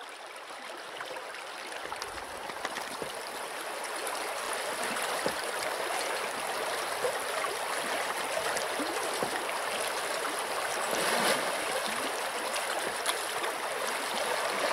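Shallow, fast-flowing river rushing steadily, a haze of water noise that swells over the first few seconds and then holds.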